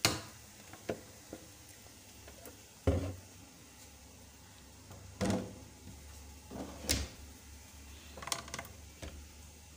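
A handful of separate knocks and clacks as a plastic cooking-oil container and its screw cap are handled and set down, over a faint steady low hum.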